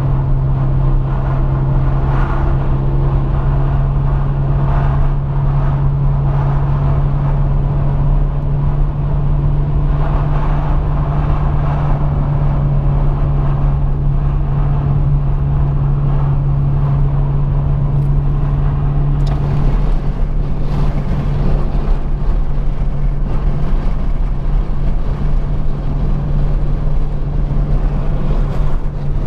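Car driving at a steady cruise, heard from inside the cabin: a steady low engine drone over broad road and tyre noise.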